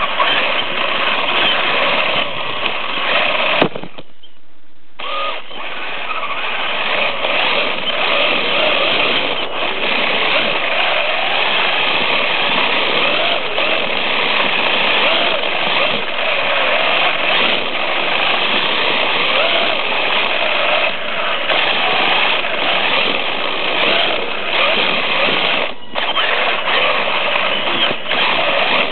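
Brushless electric motor and drivetrain of a Traxxas Stampede RC truck running hard as it is driven and slid across a smooth floor on slick tyres. The sound is loud and continuous, with a sharp click and a sudden gap of about a second near four seconds in.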